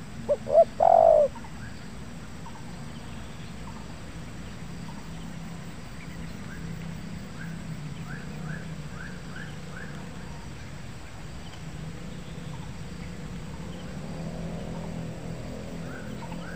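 Spotted dove cooing once, loud and close, a short phrase of three or four notes about a second in. Faint small-bird chirps and a steady low hum run under it.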